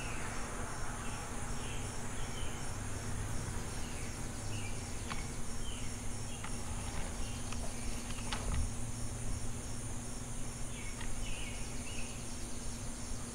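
Insects trilling steadily in a high, even buzz, with short chirps recurring about once a second. A few sharp clicks come through in the middle.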